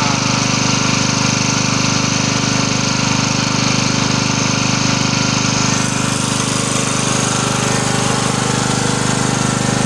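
Small engine running steadily at one speed, a loud drone with a rapid, even pulse.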